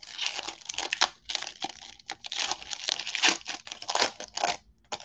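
Crinkly wrapper of a Donruss football card pack being torn open and crumpled by hand: a dense run of crackling and tearing that stops near the end.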